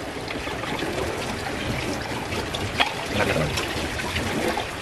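Pinakbet vegetables cooking in broth in an aluminium pot, a steady hiss, while a wooden spatula stirs them with a few light knocks against the pot.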